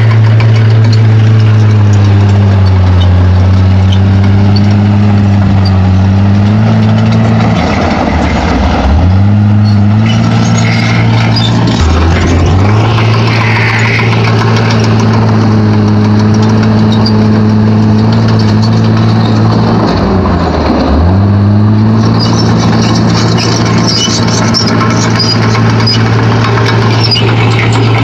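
Komatsu D31P bulldozer's diesel engine running steadily under load. Its pitch sags and picks back up three times, about 8, 12 and 20 seconds in.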